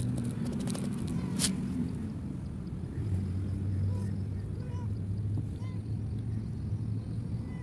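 Dry cat kibble rattling out of a plastic bottle onto a stone, a run of clicks over the first second and a half. Then a tabby cat meowing, a few short calls, over a steady low hum.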